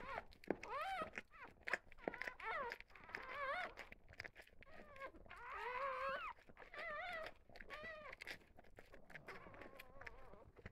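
Newborn goldendoodle–golden retriever puppies squeaking and whining: a run of short, high, wavering cries one after another, the longest and loudest about halfway through. Soft clicks and rustles come between the cries.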